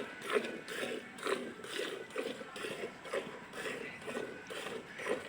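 Hand-milking a cow into a pail: streams of milk squirting into the milk in the bucket in a steady rhythm, about two and a half squirts a second.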